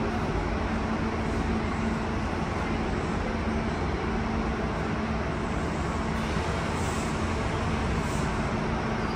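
Kintetsu electric train at a station platform: a steady rumble with a constant low hum, the level unchanging throughout.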